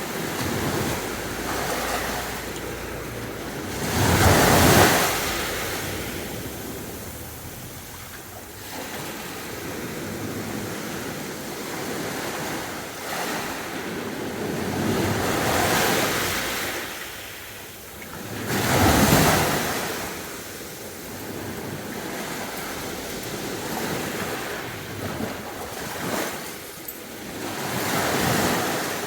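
Sea waves breaking on a beach and washing back in slow, uneven swells. The biggest waves break about four seconds in and again about nineteen seconds in, with smaller ones between.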